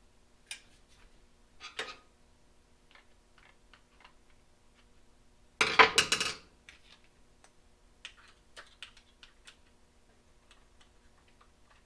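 Light clicks and clinks of a roof-rack crossbar foot clamp being handled and its screw loosened with a T-handle key, with one louder clattering rattle about six seconds in.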